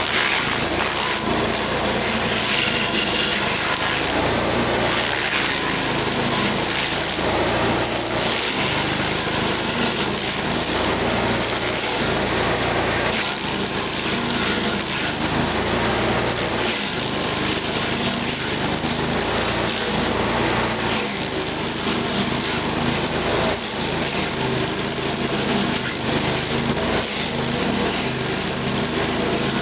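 LASKI F500H stump grinder running steadily under load as its cutting wheel grinds into an ash stump. The engine note wavers slightly as the wheel bites into the wood.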